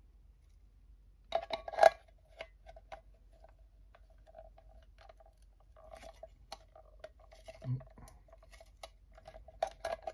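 Culinare MagiCan hand-turned can opener worked on the rim of a steel tin can, cutting small slits in the metal: two sharp metallic clicks about a second and a half in, then a run of small irregular ticks and scrapes with a faint metallic ring, and one dull knock near the end.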